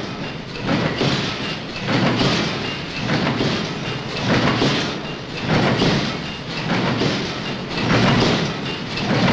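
Bolt-making machine running as heavy wire rod feeds into it: a loud, steady mechanical clatter that swells and eases roughly every second or two.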